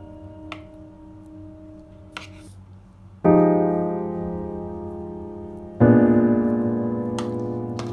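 Background electric-piano music: a soft chord fades out, then two loud chords are struck about three and about six seconds in, each ringing and slowly fading. A few faint clicks sound under it.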